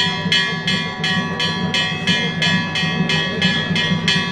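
A bell struck rapidly and evenly, about three strokes a second, its tone ringing on between strokes, over the murmur of a crowd.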